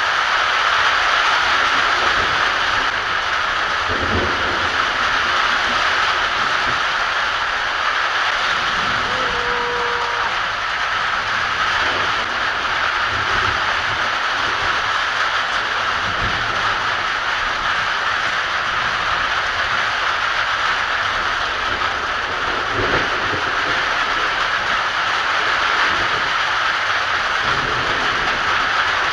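Heavy rain falling in a steady, even hiss, with a few faint low rumbles of thunder.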